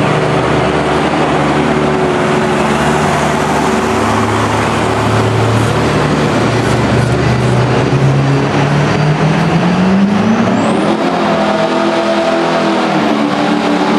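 Diesel pickup truck engines running hard under full load while pulling weight sleds. The engine pitch climbs about ten seconds in, with a brief high rising whistle at the same moment.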